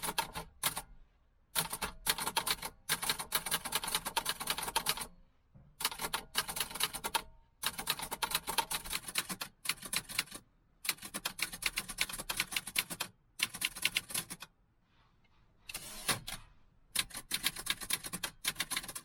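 Typing on an Optima Plana portable manual typewriter: rapid runs of sharp key strikes, broken several times by short pauses.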